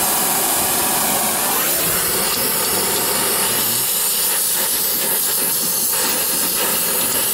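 Brazing torch flame hissing steadily while it heats a copper line joint on a refrigeration compressor for silver brazing.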